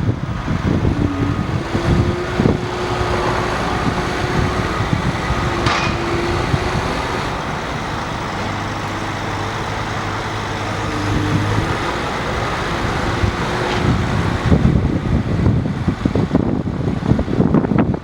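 Volvo EW160D wheeled excavator running, its diesel engine sounding steadily with a wavering whine over it.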